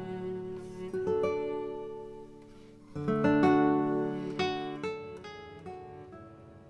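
Background music on acoustic guitar: plucked notes and strummed chords, with fresh strums about a second in and again about three seconds in, each dying away.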